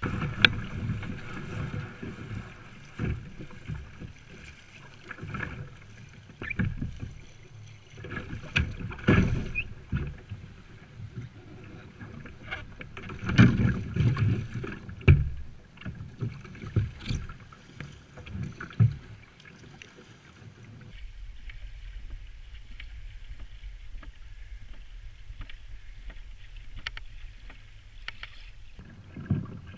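Plastic sit-on-top kayak launching through light surf: irregular sloshes, splashes and knocks of water and paddle against the hull. About two-thirds of the way in, this gives way to a quieter, steady low rumble with faint ticks as the kayak moves on calm water.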